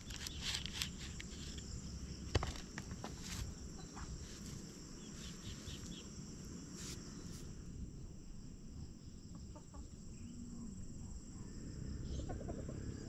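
Chickens clucking, with rustling and two sharp knocks in the first few seconds as a tomato seedling is tipped out of a plastic pot and pressed into the soil by hand.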